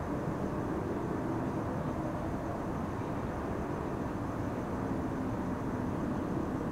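Steady low rumble of distant city background noise, with faint humming tones running through it.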